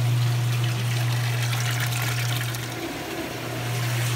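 Kenmore top-load washer in its spin cycle: the motor hums steadily while water is spun out of the basket and drained, heard as running, trickling water. The hum dips briefly about three seconds in.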